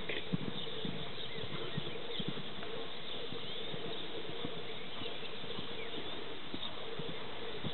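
Faint, scattered soft thuds of a horse's hooves on arena sand, over steady outdoor background noise with faint bird chirps.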